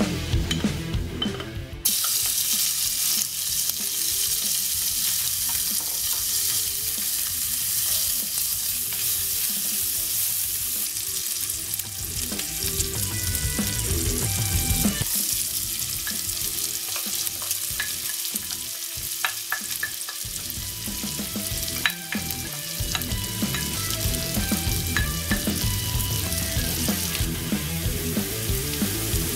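Diced bacon sizzling steadily in hot oil in an enamelled cast iron pot. The sizzle starts abruptly about two seconds in, and light clicks run through it in the second half.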